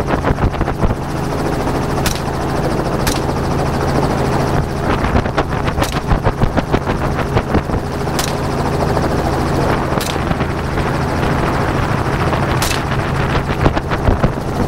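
Helicopter running steadily with a fast rotor chop. About six sharp cracks of gunshots cut through it at irregular intervals of one to three seconds.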